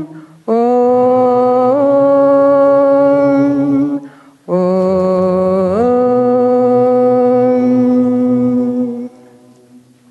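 Chanted or hummed vocal notes: two long notes, each held for about four seconds, with a short breath between them. The pitch slides up into the second note, and the chanting stops about nine seconds in.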